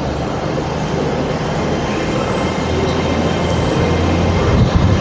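Train engines running at a station platform: a steady low drone, with a thin high whine that rises slowly from about two seconds in. Wind buffets the microphone.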